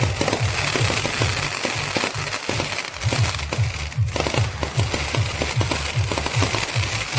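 Fireworks crackling with a dense stream of rapid snaps and pops, over music with a steady bass beat.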